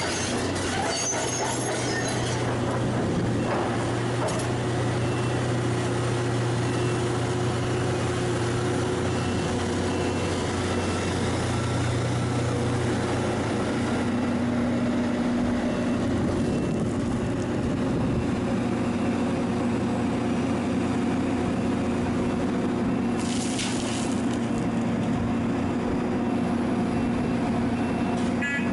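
Heavy diesel engines of a Volvo tipper truck and a Hitachi Zaxis 470LCH excavator running steadily, the engine note shifting about halfway through as the truck moves into position. A short hiss of air from the truck's air brakes comes about three-quarters of the way through.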